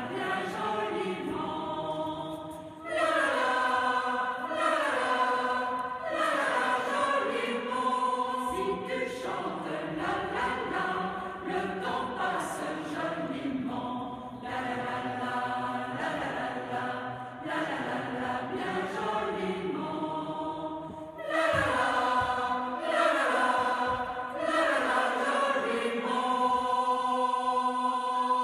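Mixed choir of men's and women's voices singing together in parts, led by a conductor. It swells louder about three seconds in and again about twenty-one seconds in.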